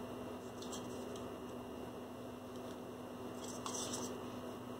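Steady low electrical hum, with a few faint soft ticks and spatters of a paintbrush flicking acrylic paint onto paper about a second in and again near the end.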